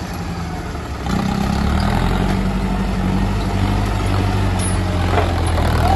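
Tractor diesel engines running. About a second in, one revs up and holds at a higher, steady speed under load, working to free a sand-laden trolley stuck in mud.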